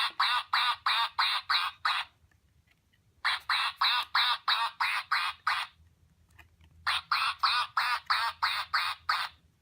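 Sound module of a children's 'Duck Says Quack' sound book playing a recorded duck quacking through its small speaker. The quacks come in three runs of rapid, evenly spaced quacks, about four or five a second, with short pauses between the runs.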